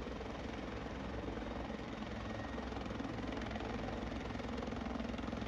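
US Park Police Eagle helicopter running, a steady, fairly faint engine and rotor drone.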